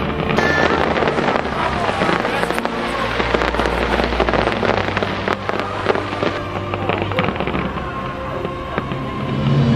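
Fireworks bursting in a dense, rapid crackle of many small reports, with music playing underneath.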